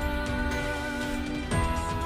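Background music: sustained chords, changing about one and a half seconds in with a deep drum hit.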